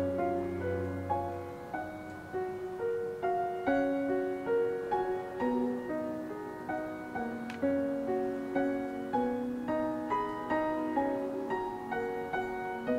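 Background piano music: a slow, gentle melody of single struck notes, each fading away.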